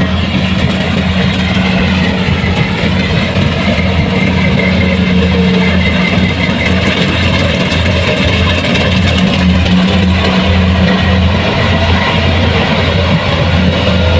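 Kubota combine harvester's diesel engine and threshing machinery running steadily under load.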